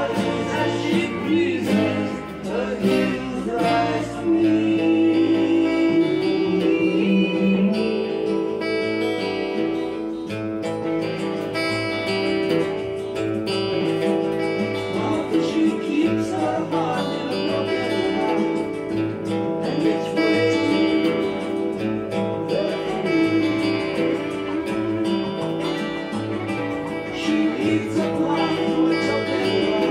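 Steel-string cutaway acoustic guitar playing an instrumental passage, picked with the fingers, notes ringing on continuously.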